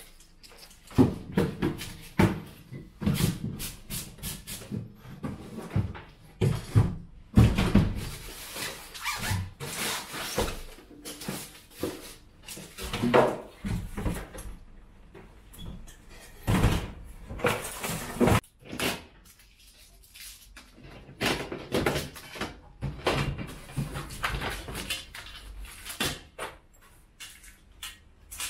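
Irregular knocks, clatter and rustling as a split-system air-conditioner indoor unit is unwrapped from its plastic bag and handled, its plastic casing bumping and scraping.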